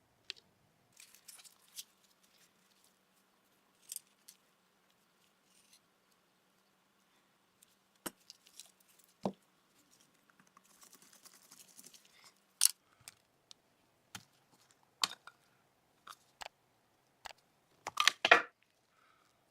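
Steel parts of a Remington Rand 1911A1 pistol handled during disassembly: scattered sharp clicks and small knocks, a short stretch of light scraping in the middle, and a quick cluster of clicks near the end.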